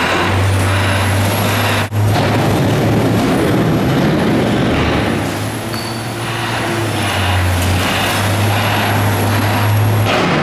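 Caterpillar wheel loader's diesel engine running steadily under load as the machine pushes its bucket into a pile of mixed waste, with a thin high whistle over it. The sound breaks off for an instant about two seconds in.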